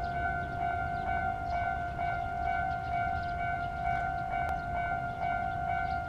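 Japanese railway level-crossing alarm sounding a steady electronic ringing while the crossing is active, warning that a train is approaching.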